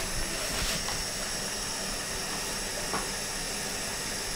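Steady hiss of hot oil sizzling as fish and sides deep-fry, with a light click about three seconds in.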